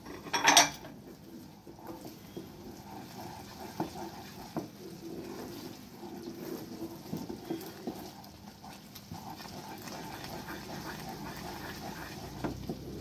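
Wooden spatula stirring and scraping thick gram-flour and ghee batter in a steel pan, with scattered knocks against the pan. A sharp clatter about half a second in is the loudest sound.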